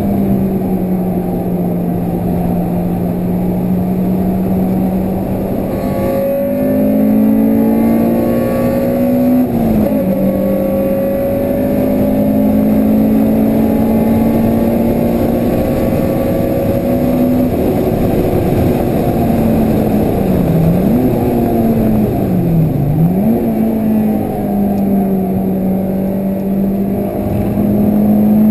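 Honda Civic Type R's 2.0-litre i-VTEC four-cylinder engine running hard at high revs on track, heard from inside the cabin with wind and road noise. The engine note holds mostly steady, breaks briefly about a third of the way in, and dips sharply and recovers twice near two-thirds through.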